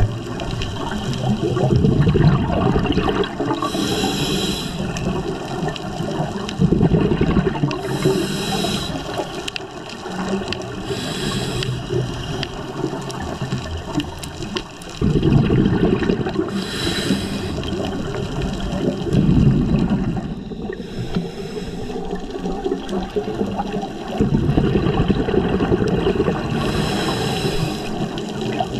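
Scuba diver breathing through a regulator underwater: a short hiss of inhalation every four to six seconds, alternating with a low rumble of exhaled bubbles.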